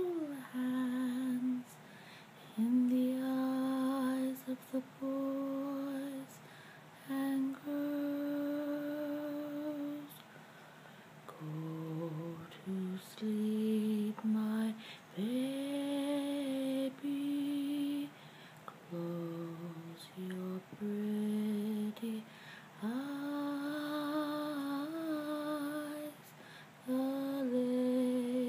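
A single voice humming a slow lullaby melody without words: held notes in phrases of a few seconds with short pauses between them, several phrases starting with an upward slide into the note.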